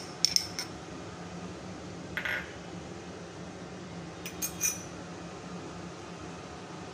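Small glass bowls and a steel spoon clinking as they are handled and set down: a few light clicks near the start, a brief scrape about two seconds in, and a couple of ringing glass clinks about four and a half seconds in, over a steady low hum.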